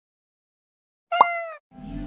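Silence, then about a second in a short cartoon cat 'meow' sound effect: one slightly falling note lasting about half a second. Background music fades in near the end.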